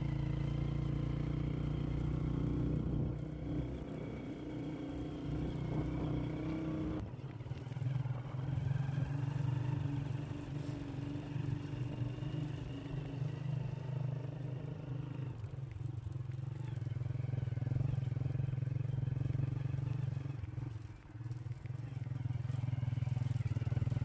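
A motor vehicle's engine running steadily while driving along a dirt road; its note shifts about seven seconds in, and there is a brief drop in loudness near the end.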